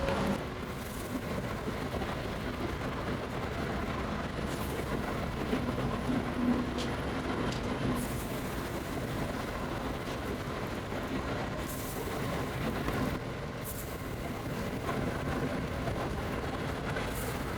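Steady mechanical rumble of bakery machinery running, with a few brief hisses.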